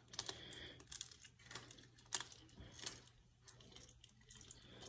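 Serval chewing and crunching a raw quail held in a hand: faint, irregular wet clicks and snaps of teeth on meat and bone.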